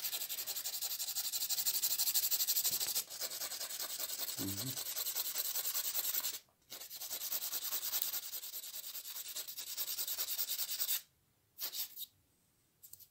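A coarse human nail file rasps quickly back and forth across a dog's claws, a fast, steady scraping. It pauses briefly about six and a half seconds in and stops about eleven seconds in, followed by a couple of short strokes.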